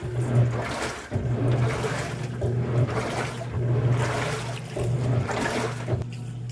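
Manual washing machine running: a steady motor hum under water churning in the tub, the swishing swelling and fading about once a second.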